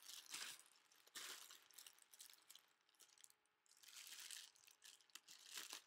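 Faint crinkling of a clear plastic garment bag being handled, in several short spells with a quieter stretch in the middle.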